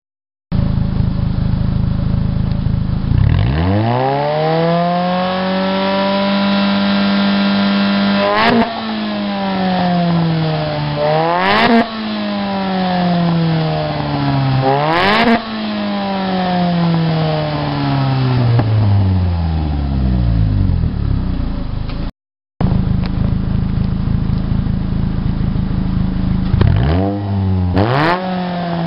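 Renault Twingo four-cylinder engine through a custom exhaust, revving. It idles, climbs about three seconds in and holds high revs, then is blipped sharply three times with a crack on each, and sinks slowly back to idle. After a short break it idles again, with two quick blips near the end.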